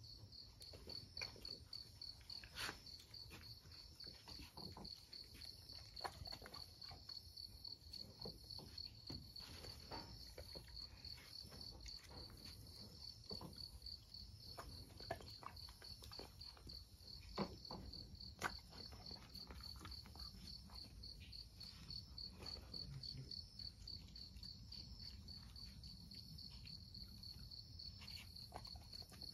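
Crickets chirping: a steady, high, evenly pulsed chirping that runs on without a break, with faint scattered clicks and knocks beneath it.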